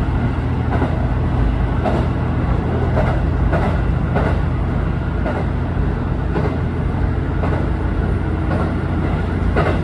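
Train running along the track: a steady low hum from the railcar, with the wheels clicking over rail joints roughly once a second.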